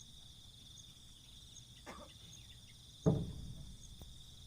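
A steady, high insect chorus with a regular faint tick above it. A soft knock about two seconds in, and a louder sudden thump about three seconds in.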